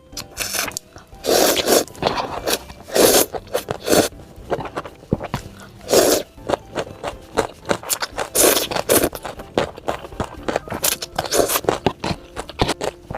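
Close-miked crunching and chewing of crisp food: loud bites and chews come in irregular bursts every second or two.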